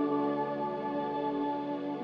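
Background music: held, ambient chords that slowly fade.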